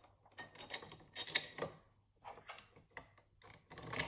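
Small metal parts being handled and fitted by hand: irregular clicks and light rattles in several short runs, from fitting a shock-mount bracket to the steel frame.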